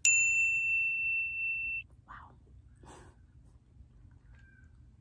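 A single high electronic beep that starts sharply, holds one steady tone for nearly two seconds and cuts off abruptly, followed by two faint brief noises.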